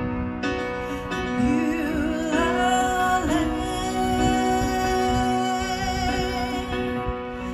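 A woman singing a slow worship song to her own electronic keyboard, holding one long note from about three seconds in until near the end over sustained keyboard chords.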